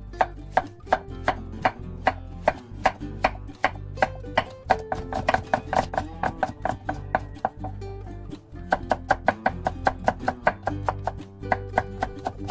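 A kitchen knife julienning a carrot on a wooden cutting board: quick, even strokes that tap the board about three to four times a second, with a brief pause about two-thirds of the way through.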